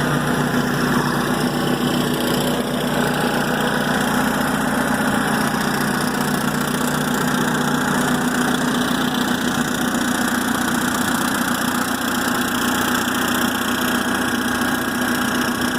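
MEP-802A military diesel generator running steadily at full governed speed under about 100% electrical load, taking the load without trouble.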